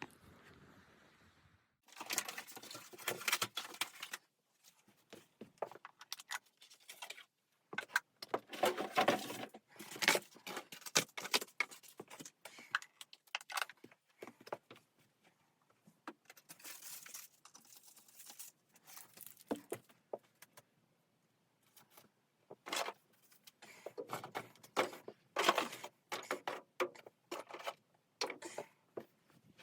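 Irregular bursts of clinking, clattering and rustling, as small hard objects are handled and knocked together, in clusters of quick sharp clicks separated by short pauses.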